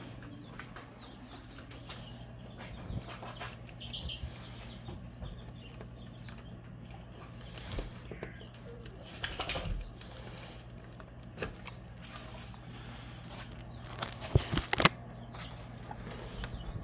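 Chickens moving about, over a steady low hum, with a few sharp knocks near the end.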